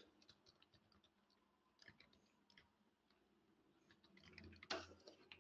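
Faint computer keyboard keystrokes: scattered single clicks, then a louder short flurry about four to five seconds in.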